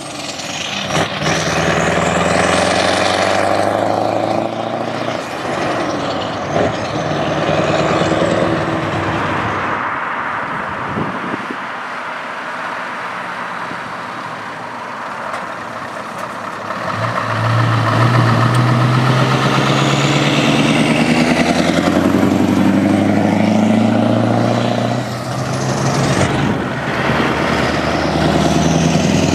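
Scania V8 trucks driving past one after another with deep engine sound. It dips in the middle and swells again near the end as the next truck pulls close.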